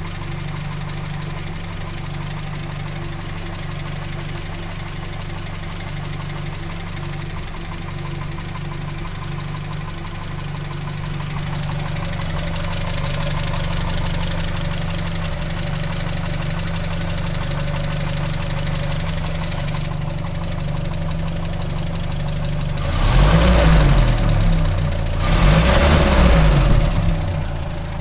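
A 1939 Citroën Traction Avant 7C's four-cylinder engine idling with a tapping knock from a failed tappet. It is revved twice briefly near the end, each time rising and falling back.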